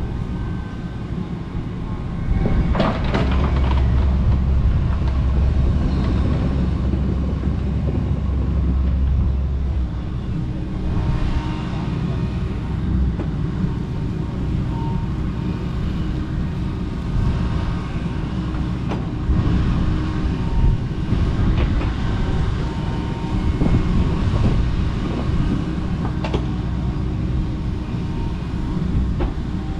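Kobelco SK85 MSR 8-ton excavator running and working, its engine pulling harder for several seconds early on, with sharp cracks and knocks now and then as it clears overgrown brush.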